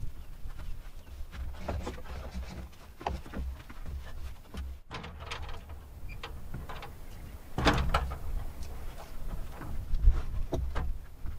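Irregular knocks, taps and clatter of hand work with lumber and tools, over a low rumble, with a louder cluster of knocks about eight seconds in.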